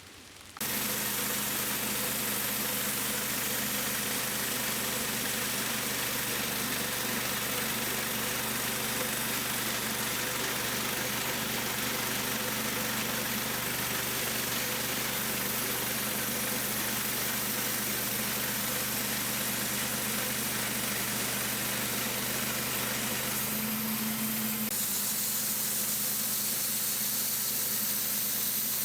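A band sawmill's engine running steadily at constant speed under a dense hiss. It starts abruptly, and its note shifts slightly about three-quarters of the way through.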